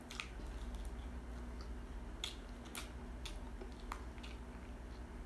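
Close-up biting and chewing of crispy fried chicken, with a handful of short, sharp crisp clicks, most between two and four seconds in, over a steady low hum.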